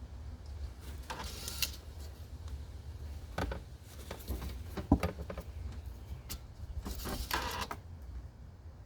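Engine oil dipstick being pulled out and slid back into its tube: a few short scraping sounds and a sharp click about five seconds in, over a low steady hum.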